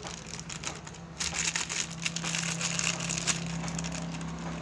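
Thin plastic bag of cornstarch crinkling as it is squeezed and shaken out by hand, the crackling densest from about a second in until near the end, over a steady low hum.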